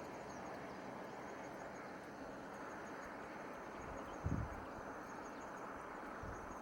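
Steady outdoor background noise with a faint, high, pulsing insect trill, and one brief low thump about four seconds in.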